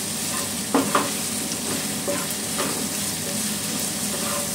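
Sliced onions sizzling in hot ghee (minyak samin) in a wok, stirred with a wooden spatula that scrapes and taps the pan in repeated strokes, two sharper ones about a second in.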